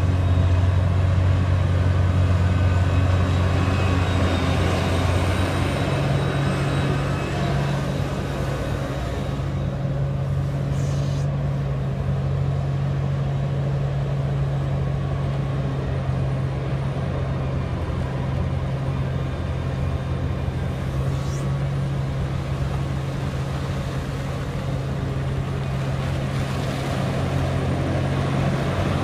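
Liebherr R 984 crawler excavator's large diesel engine running steadily under load as the machine swings, digs and lifts a full bucket, with a faint high whine over it. The deep engine note steps up in pitch about six seconds in.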